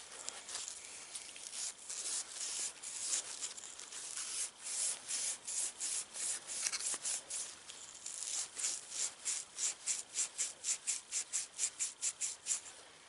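Plastic plumbing fitting being rubbed back and forth on a maroon abrasive scuff pad, a dry scratchy scrubbing. It roughens the plastic before gluing. The strokes are uneven at first, then from about two-thirds of the way through come quicker and more regular, about three or four a second.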